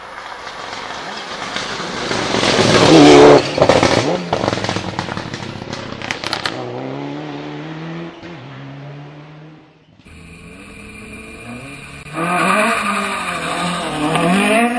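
Rally car engine at full throttle, growing louder as the car approaches and passes close by about three seconds in, with a few sharp cracks just after. It then fades as the car goes away. After a sudden cut, a second rally car's engine comes in loud, its revs rising and falling.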